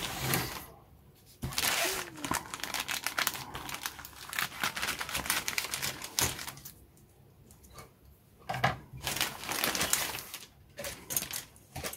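Clear plastic bag holding a model kit sprue crinkling and crackling as hands open and handle it, in several stretches broken by two short pauses, about a second in and just past the middle.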